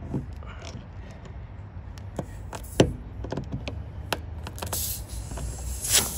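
Scattered clicks and knocks of hand tools and a screw against a car tire as the screw is worked out of the tread, the sharpest click about three seconds in. About five seconds in a steady hiss starts: air escaping from the tire through the open screw puncture.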